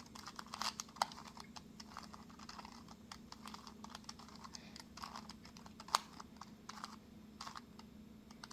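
A 2x2 Rubik's Cube being turned through an algorithm: a run of quick, irregular plastic clicks as the layers are twisted, over a faint steady hum.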